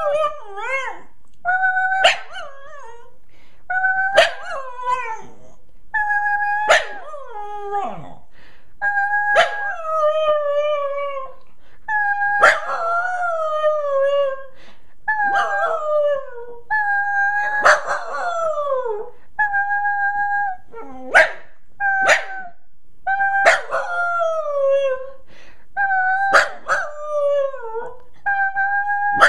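A small terrier howling and "talking": a long series of short calls about every two seconds, each opening with a sharp yip, holding a steady note, then sliding down in pitch.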